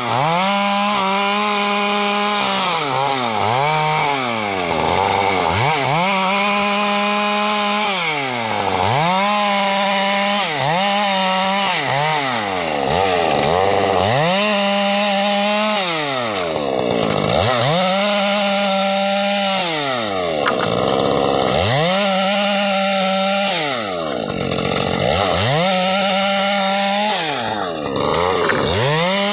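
Chainsaw engine revving up to full throttle and dropping back again and again, roughly every two seconds, while ripping a log lengthwise into planks.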